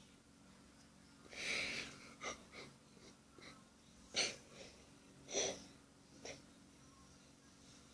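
A person breathing close to the microphone: a handful of short, breathy puffs, the longest about a second and a half in.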